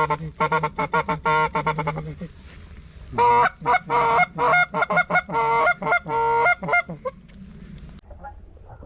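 Hand-blown goose call sounding two rapid strings of honks and clucks, the second starting about three seconds in. A low growl is voiced through the call under the first string.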